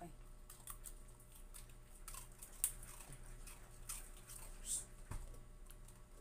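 Faint scattered clicks and short crackles, with one sharp click about two and a half seconds in: puppies taking small treats from a hand and chewing them.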